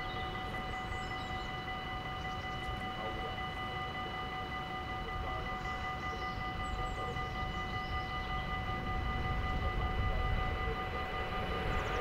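Railway level-crossing warning bell ringing steadily while the barriers are down, as an approaching train's rumble grows louder over the last couple of seconds. Birds chirp faintly now and then.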